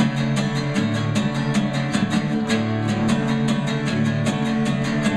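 Acoustic guitar strummed in a steady, even rhythm, about five or six strokes a second, between sung lines of a pop-rock song.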